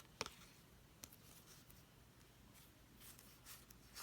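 Near silence with a few faint clicks and light sliding of trading cards being handled, one sharper click just after the start and another about a second in.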